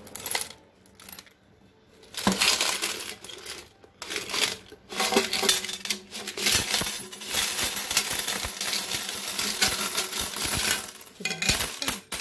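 Many Moroccan dirham coins pouring out of a cut-open metal money box and clattering onto a glass tabletop. They come in several bursts from about two seconds in until near the end.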